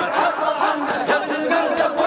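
A crowd of voices chanting and shouting together, many voices overlapping: the group refrain and cries of an Iraqi hosa war-chant.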